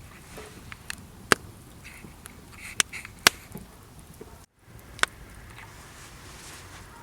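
Wood campfire crackling over a steady low background, with several sharp pops: two about a second in, two around three seconds in, and one about five seconds in. The sound drops out to silence for a moment just before the last pop.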